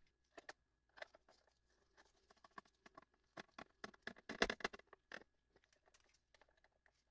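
Faint handling noises: gloved hands moving a circuit board in its plastic case, with scattered light clicks and taps that are busiest and loudest about four and a half seconds in.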